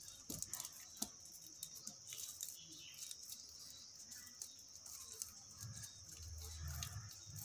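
Faint rustling and small clicks of a scrap of lined paper being folded and pressed between fingertips on a metal tabletop, over a steady high hiss.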